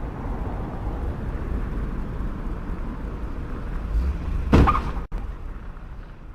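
Steady low traffic rumble at an intersection, with one loud sudden bang about four and a half seconds in: a car colliding with another vehicle.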